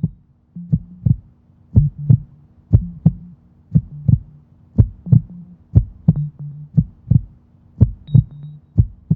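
Human heartbeat heard through a stethoscope: paired lub-dub beats, about one a second, over a low steady hum.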